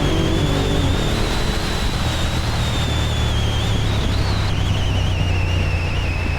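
Wind rushing over the microphone, with a steady low rumble underneath and a thin, wavering high whine.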